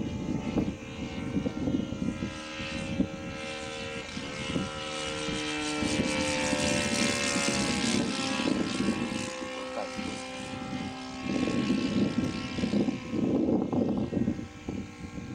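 Fuel-powered engine and propeller of a radio-controlled PC-21 scale model plane droning in flight, rising and then falling in pitch and loudness as it passes close overhead around the middle. Gusty low rumbling of wind on the microphone comes near the start and in the last few seconds.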